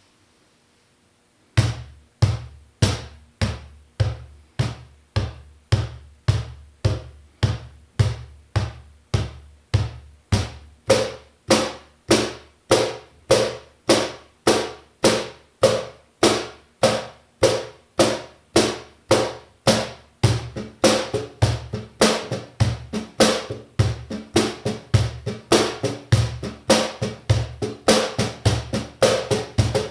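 Duende Pro cajon played by hand, its snare wires held down with paper tape: a steady rhythm of deep bass strokes and sharper slaps, about two strokes a second, starting about a second and a half in. The pattern grows busier with quicker strokes over the last third.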